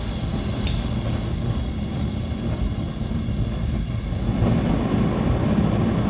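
Propane furnace burner running with a steady rumbling roar, getting louder about four seconds in. Its flame is unsteady, which the owner puts down to the cheap regulator: "something's not quite right."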